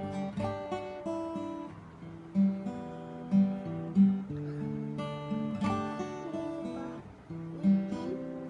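K.Yairi Ray-s60th acoustic guitar playing a melodic song intro: ringing picked notes and chords with several loud accented bass notes.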